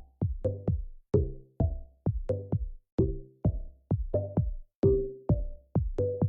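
Electronic background music with a steady drum-machine beat and short pitched notes on each hit.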